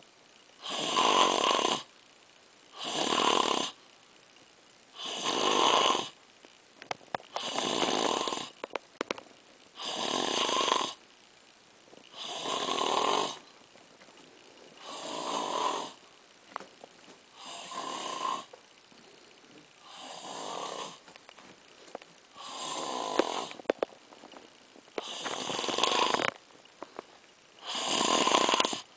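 Heavy snoring: a loud snore about every two and a half seconds, each lasting about a second, with quiet breaths between.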